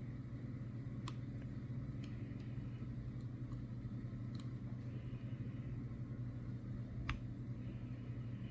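Faint, scattered clicks of a hook pick and tension wrench working the pins of a Master Lock 6835 padlock, a lock with spool security pins, the clearest about a second in and near the end, over a steady low hum.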